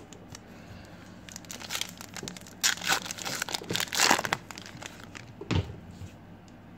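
Foil trading-card pack wrapper crinkling and tearing as it is pulled open by hand, loudest around three to four seconds in, followed by a short thump about five and a half seconds in.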